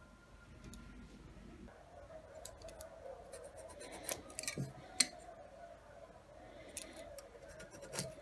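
Light handling sounds from hand work on wood: a few sharp clicks and some scratching, over a faint steady hum that starts about two seconds in.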